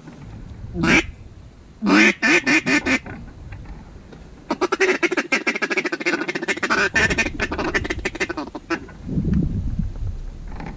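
Loud duck quacking. A single quack comes about a second in, then a run of about six quacks around two seconds. A long, fast string of quacks runs from about four and a half to nearly nine seconds. Low wind rumble comes in near the end.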